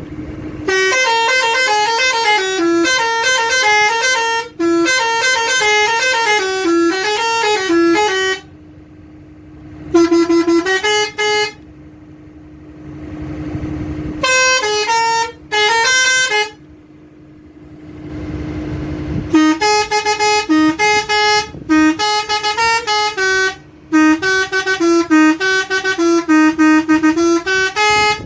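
Six-trumpet 'telolet' electric bus horn playing quick multi-note tunes in several runs, with pauses of a few seconds between them. A steady hum runs underneath.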